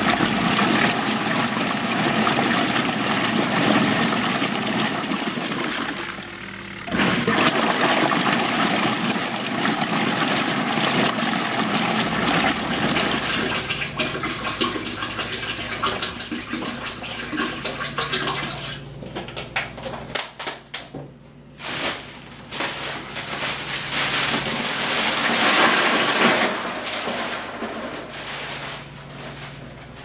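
Water being poured into the plastic tub of a small washing machine, splashing steadily in several long pours with short breaks.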